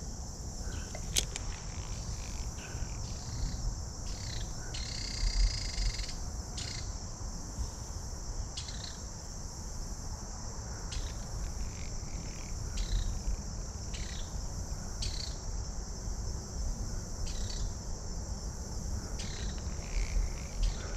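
A steady, high, continuous insect chorus over a low rumble, with a few faint clicks and a brief louder sound about five seconds in.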